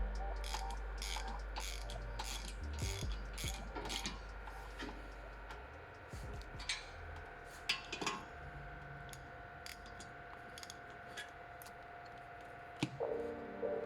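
Mechanical clicking from hand tools at work on the brakes: a run of sharp clicks, about two or three a second, over the first five seconds, then a few scattered single clicks.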